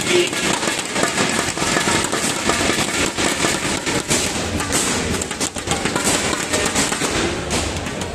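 Spectators clapping and cheering after a point, with a dense patter of sharp claps over crowd noise.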